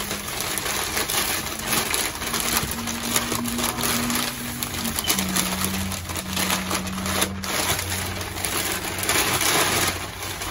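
Tissue packing paper crinkling and rustling as an item is unwrapped by hand, a busy stream of crackles. Low held notes sound faintly underneath.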